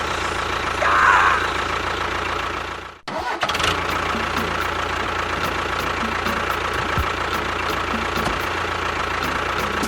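Motor of a miniature DIY tractor running steadily, cutting out briefly about three seconds in, then running on.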